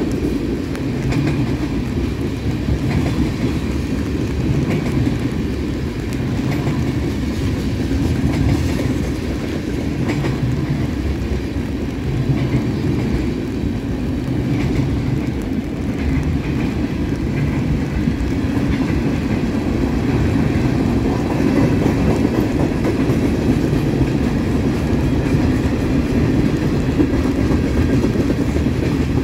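Freight cars of a Canadian National train rolling past at close range: tank cars and covered hoppers rumbling steadily, their wheels clattering in a repeating rhythm over the rail joints.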